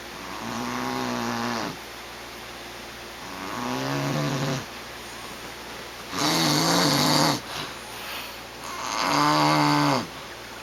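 Snoring: four snores, each a little over a second long, coming about every two and a half to three seconds, the last two louder than the first two.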